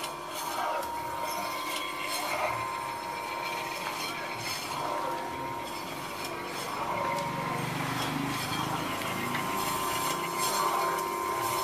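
Electric meat slicer's rotary blade running with a steady motor hum while the carriage is pushed back and forth, slicing a block of tempe with a rasping swell about every two seconds.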